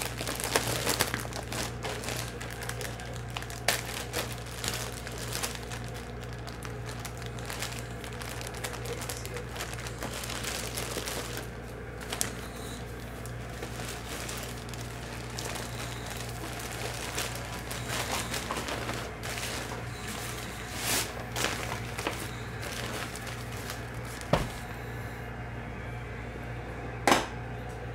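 Nylon drawstring bag rustling and crinkling as it is handled, with scattered sharp clicks and knocks, the loudest near the end, over a steady low hum.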